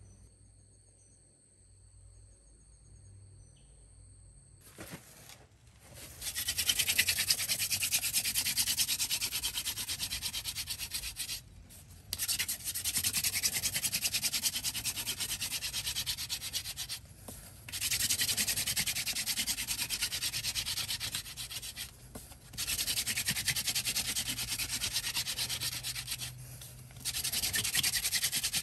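Wooden hand-drill spindle spun back and forth between the palms in a wooden hearth board to light a friction fire. It makes a rapid rasping scrape that starts about six seconds in and comes in runs of four to five seconds, with short breaks as the hands move back to the top of the drill.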